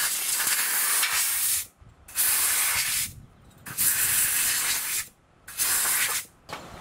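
Compressed-air blow gun blasting excess ultrasonic lube and moisture off freshly lubricated Mac 10 parts. The air hisses in bursts: one ends about a second and a half in, then come three more short blasts with brief pauses between them.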